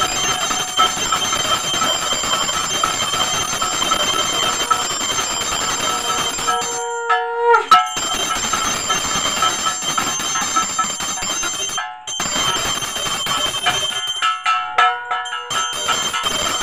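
Puja hand bell (ghanta) rung continuously during worship: a steady, rapid ringing that pauses briefly a few times.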